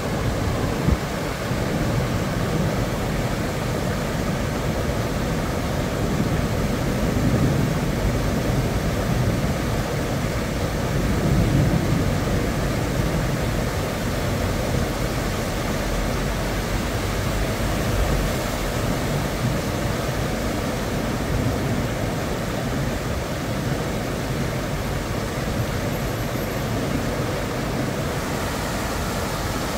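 Floodwater rushing across a flooded street, a steady noise with gentle swells, with vehicles driving through the water and splashing it up.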